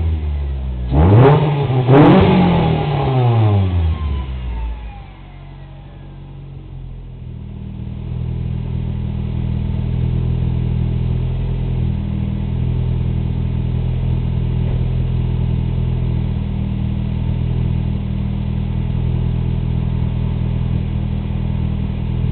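2004 Nissan Sentra SE-R Spec V's 2.5-litre four-cylinder, breathing through a Megan Racing 4-1 header, catless midpipe and Apexi N1 cat-back exhaust, revved sharply once about a second in and falling back. It then settles into a steady idle for the rest.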